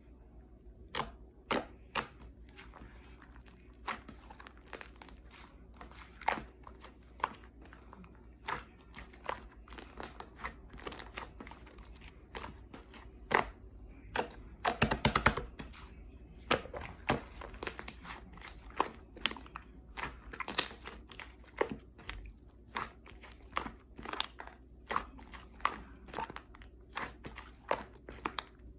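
Slime being squished and pressed by hand, giving irregular sharp clicks and pops, with a quick run of pops about halfway through.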